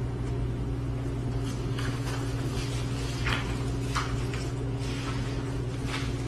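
Steady low hum of a meeting room's background, with a few short, soft rustles and taps of papers and objects on the conference table.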